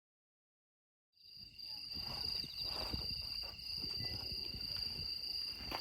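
Insects singing in a steady, high, continuous trill that fades in about a second in, after silence, with faint rustles and knocks underneath.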